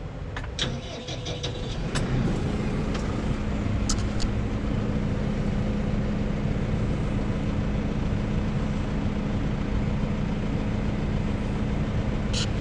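Tractor diesel engine starting about two seconds in, after a few clicks, then running steadily.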